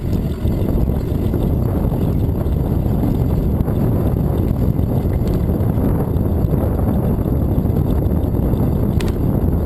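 Steady low rumble of wind buffeting the microphone on a moving bicycle, with one short click near the end.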